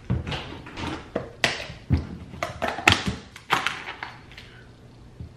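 A run of knocks and clatters from kitchen containers and utensils being handled, the loudest about three seconds in, dying down after about four and a half seconds.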